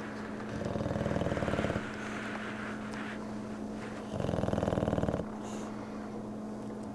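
Bulldog snoring with a soft, purr-like flutter. There are two snores, each about a second long and roughly three and a half seconds apart, over a steady low hum.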